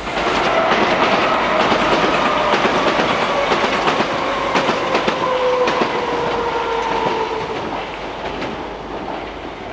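A train running through the station, its wheels clicking rapidly over rail joints, with a whine that falls slowly in pitch as it slows. The sound fades over the last couple of seconds.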